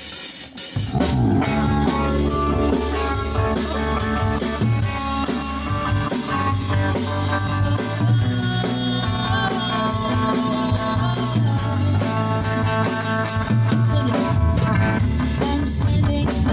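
Rock band playing an instrumental intro: drum kit keeping a steady beat with cymbal strokes about twice a second, over electric bass guitar and guitar.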